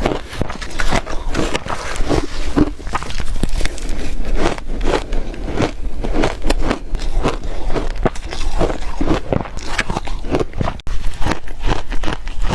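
Close-up chewing of ice: a steady run of crunches, several a second, as a mouthful of frozen ice is bitten and ground between the teeth.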